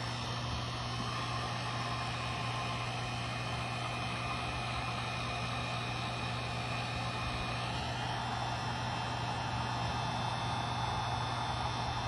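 Wagner electric heat gun running steadily, its fan motor humming under the hiss of blowing hot air, aimed at a plastic latch part to soften it for re-bending.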